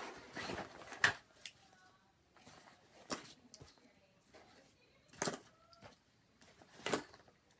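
Small survival-kit items being packed back into their case by hand: a handful of sharp clicks and clunks about every two seconds, with light rustling in between.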